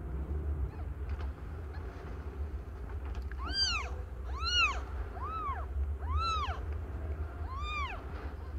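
Cat mewing: five short, high-pitched mews at about one a second, starting a few seconds in, each rising and then falling in pitch, over a low steady hum.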